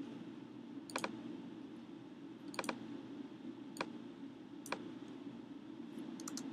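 Sharp computer mouse clicks at irregular intervals, some in quick pairs and a short cluster near the end, over a steady low hum.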